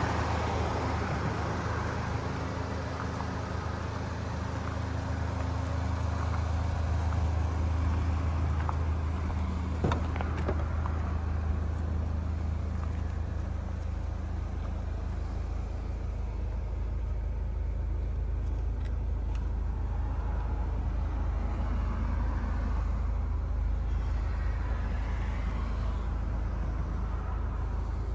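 Turbocharged 2.0-litre four-cylinder engine of a 2009 Chevy HHR SS idling steadily, a low even hum. One short click about ten seconds in.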